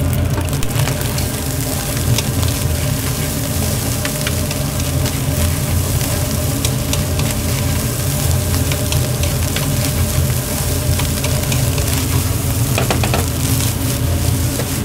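Nasi goreng being stir-fried in a wok: sizzling, with frequent clicks and scrapes of the spatula against the pan, over a steady low rumble.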